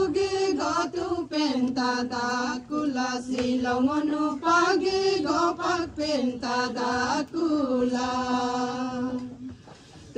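A voice chanting a slow melodic line in long held notes, phrase after phrase, pausing briefly near the end.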